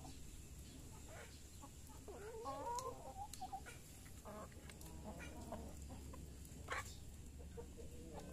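Hens clucking faintly while feeding, with a short run of warbling clucks about two to three seconds in, and scattered light taps.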